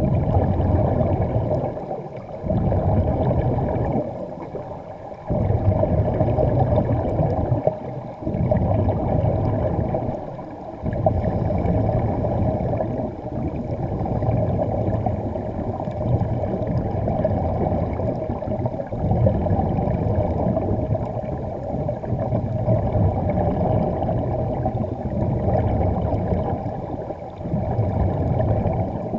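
Muffled underwater bubbling and rushing of divers' air, in long stretches broken by brief pauses every few seconds.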